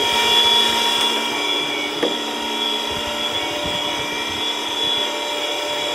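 Tormach PCNC 1100 CNC mill running steadily with its enclosure door shut, a whine of several steady tones from the spindle and drives, as a 2 mm stub drill cuts small holes in a steel block.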